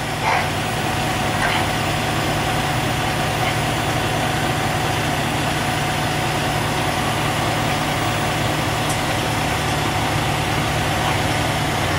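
Heavy diesel engine idling steadily, with a thin steady whine above the engine note.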